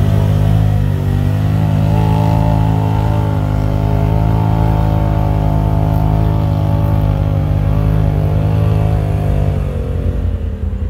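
Polaris RZR side-by-side engine running at high, fairly steady revs under load as the machine plows through a mud hole, then dropping away near the end as it pulls out.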